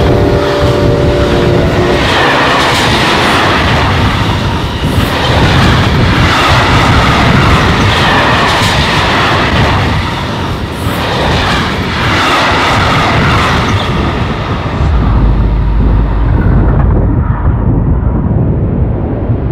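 Passenger train passing close by: its horn sounds a chord of several tones that cuts off about two seconds in, then the loud rushing noise of the passing cars swells and dips. Near the end the hiss fades away and a deep low rumble remains.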